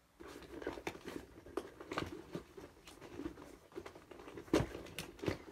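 Tools clicking and knocking against each other and rustling in the pockets of a soft-sided tool bag as a hand slots a hot glue gun back into place and rummages for the next tool. The knocks come irregularly, the loudest about four and a half seconds in.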